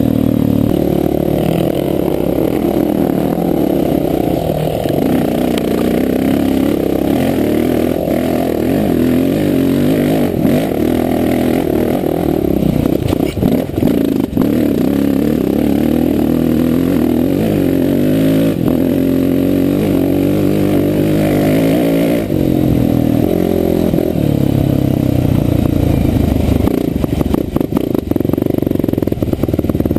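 Husqvarna TE single-cylinder four-stroke dirt bike engine, heard from the rider's helmet, running continuously and rising and falling in pitch as the throttle is opened and closed. Scattered knocks and clatter are heard around the middle.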